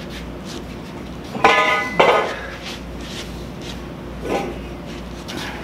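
Long steel pipe clanking on the concrete floor as it is handled: two loud ringing metallic clanks about half a second apart, a little over a second in, and a softer clank about four seconds in.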